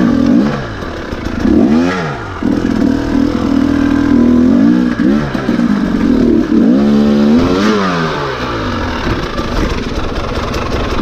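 Husqvarna TE300 two-stroke dirt bike engine revving up and down in repeated short throttle blips, with the revs held steady for a couple of seconds about three seconds in, then dropping lower near the end.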